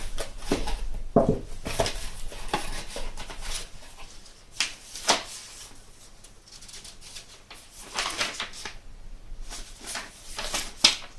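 A delivery parcel's packaging being handled and opened by hand: irregular crinkling, scraping and knocks, dense for the first few seconds, then sparser sharp crackles.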